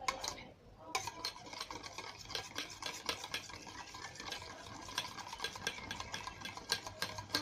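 Slime mixture of hand lotion and dish soap being stirred in a container, with quick, irregular scraping and clicking strokes that start about a second in.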